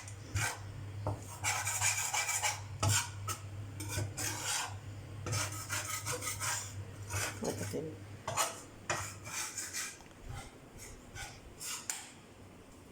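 A ladle scraping and stirring gram flour roasting in ghee in a pan, in quick irregular strokes that grow fainter and stop near the end, over a low steady hum.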